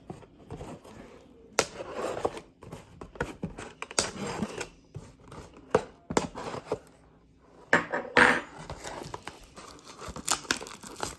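Plastic wrapping on a blaster box of trading cards being torn and crinkled, with irregular sharp crackles and rustles as the box is opened and handled.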